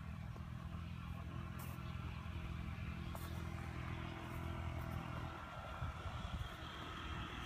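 A steady low engine hum that stops about five seconds in, over outdoor background noise.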